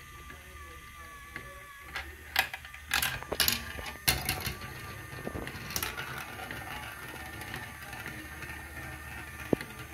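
Plastic marble run: its chain lift runs with a steady mechanical whir while carrying a marble up. From about two seconds in, the plastic marble clacks down through the track pieces in a series of sharp clicks and rolls around a plastic funnel bowl.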